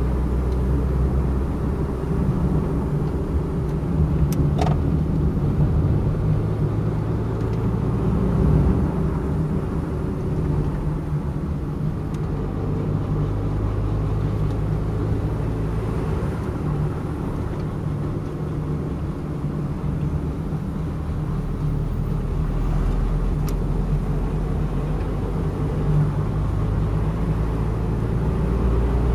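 Car engine running steadily with tyre and road rumble, heard from inside the cabin while driving on a wet road. A brief click comes about four seconds in.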